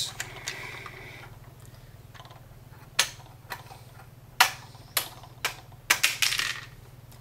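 LEGO flick-fire missiles being flicked from a plastic model's gun turrets: a series of sharp plastic clicks, about half a dozen, starting about three seconds in and coming close together near the end.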